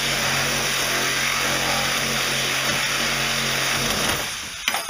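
Handheld power tool running and cutting into the sheet-metal body of a Jeep Cherokee XJ. It winds down and stops about four seconds in, followed by a sharp metal clank near the end.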